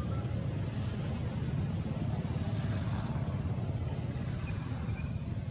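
Steady low rumble of outdoor background noise, with a few faint short high chirps near the end.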